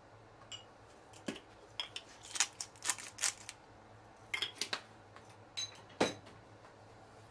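Black pepper being ground from a pepper mill over a bowl of salad: a run of short, irregular crunchy clicks and scrapes, densest in the middle, with a last one about six seconds in.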